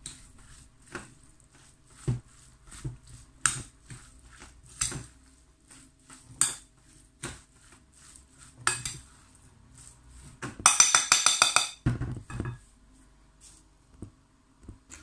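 Spoon stirring a thick vegetable-and-flour mixture in a bowl, clinking against the bowl's side every second or so, with a quick run of rapid clinks about eleven seconds in.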